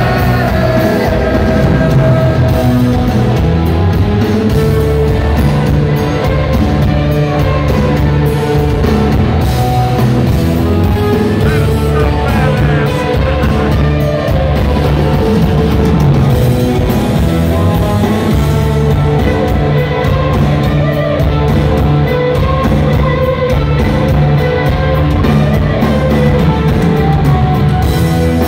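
Rock band playing live at full volume: electric guitars, bass and drum kit, with a male voice singing over them.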